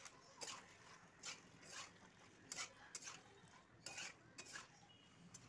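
A cooking utensil stirring penne pasta in a metal kadai: a series of faint, short scrapes against the pan, roughly one or two a second.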